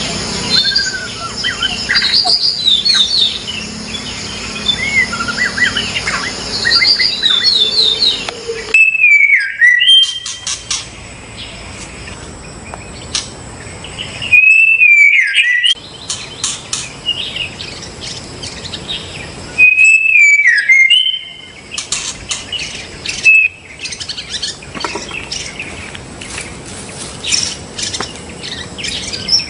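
White-rumped shama (murai batu) song played as a lure: varied whistled phrases and trills, then a loud whistled phrase that falls in pitch, repeated three times about five seconds apart, with short chips and ticks in between.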